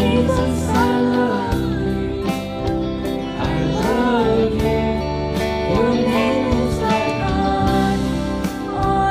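Worship song: a sung melody over steady instrumental accompaniment with a regular beat.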